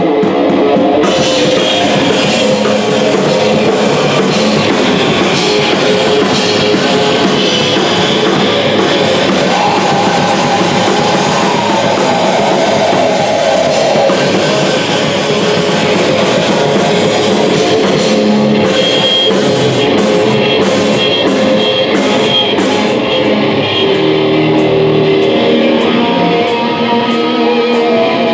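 Live punk rock band playing loud, with electric guitars over a drum kit. In the second half, a steady beat of cymbal hits stands out.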